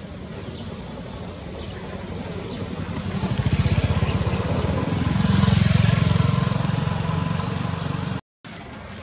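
A motor vehicle engine running close by: a low, pulsing rumble that grows louder from about three seconds in, is loudest around the middle, then cuts out abruptly near the end.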